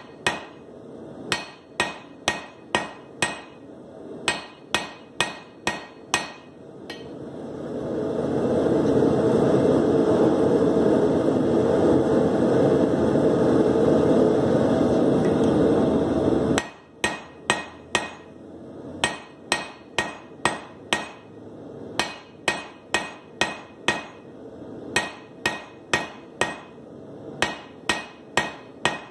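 Hand hammer drawing out a hot steel bar on an anvil, ringing blows about three a second in runs with short pauses. For about nine seconds in the middle the blows stop and a steady rushing noise from the forge takes over while the bar reheats; it cuts off suddenly and the hammering resumes.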